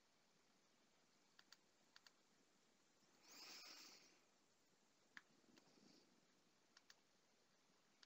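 Near silence with faint computer mouse clicks, several in quick pairs. A short soft rush of noise comes about three seconds in.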